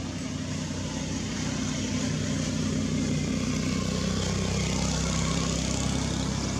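A motor vehicle engine running steadily with a low, even hum, growing a little louder about a second in.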